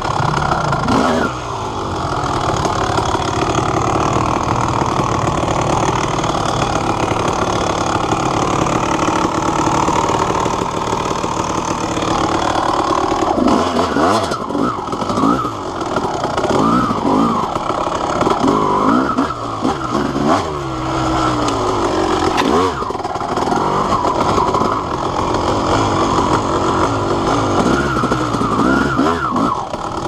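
Honda CR250R single-cylinder two-stroke dirt bike engine running under load on a trail ride. It holds a fairly steady note at first, then from about halfway through revs up and down over and over as the throttle is worked.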